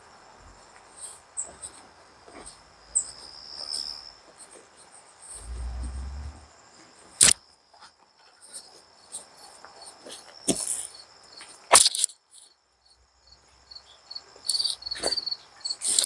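Crickets trilling steadily, a thin high chirring that runs throughout. Several loud, sharp crackles close to the microphone break in, and there is a brief low rumble about six seconds in.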